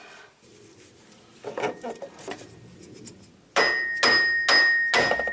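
Sharp metal-on-metal taps driving a new A/C compressor clutch part onto the compressor nose. A few soft knocks come first, then about three and a half seconds in come four ringing strikes, about two a second.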